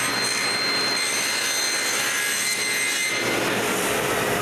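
Table saw running with a steady whine while ripping thin wooden spline strips to width; the sound of the cut shifts about three seconds in.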